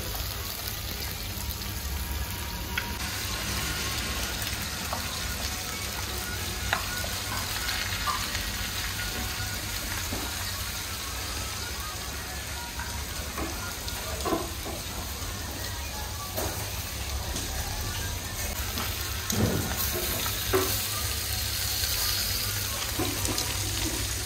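Steady sizzling hiss from clay tagines set over charcoal braziers, with a few short light clicks and taps as pieces of meat are handled in the pots.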